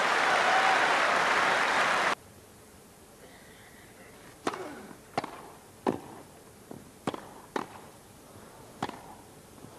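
Crowd applauding, cut off abruptly about two seconds in. Then, in a hush, a tennis serve and the grass-court rally that follows: about seven sharp racket-on-ball strikes over four seconds.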